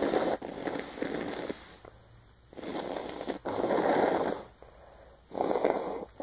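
A woman blowing her nose: a series of noisy blows, each about a second long, with short pauses between them.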